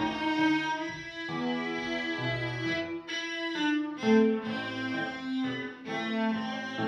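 Background music: a melody of held notes, changing every half second or so.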